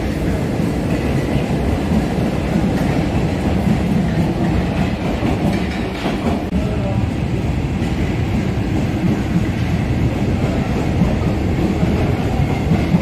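Paris Métro MF67 train running through the station on steel wheels: a steady, loud rumble with wheel clatter on the rails. The rumble dips briefly about halfway through.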